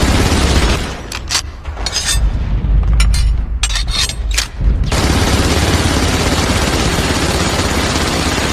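MG42 machine gun firing so fast that the shots run together into one continuous noise. About a second in it breaks into several short separate bursts. Sustained fire resumes about five seconds in.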